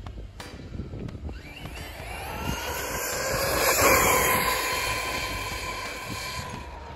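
Hobao Hyper SSTE electric RC truggy passing at speed: the whine of its motor and drivetrain grows as it approaches, is loudest about four seconds in as it goes by, then fades as it runs away down the street.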